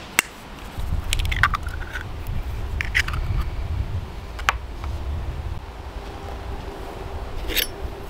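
An egg tapped sharply on the rim of a bowl and cracked open, followed by scattered small crackles and knocks of shell and handling over a low rumble.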